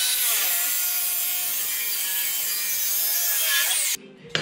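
Abrasive chop saw cutting through exhaust pipe: a harsh grinding hiss over the motor's whine, which sags as the wheel bites into the pipe and rises again near the end. It cuts off abruptly about four seconds in, followed by a sharp clack.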